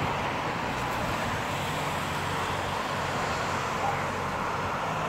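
Ferrari V8 idling steadily, with no revving.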